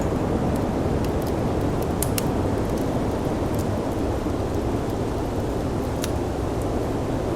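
Steady, deep rushing of snowstorm wind, with the sharp pops and crackles of a wood fire scattered through it, several close together about two seconds in and one more near the end.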